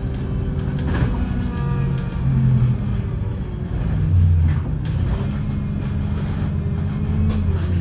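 Wright StreetLite single-deck bus driving, heard from inside the cabin: the engine runs with its note stepping up and down a few times over a steady low rumble, and a few short knocks and rattles come through.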